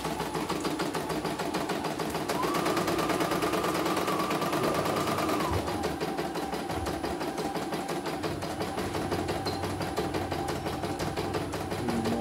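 Computerized home embroidery machine stitching a design in rapid, even needle strokes, a steady fast clatter with no pause, while it test-runs an embroidery pattern in a small hoop.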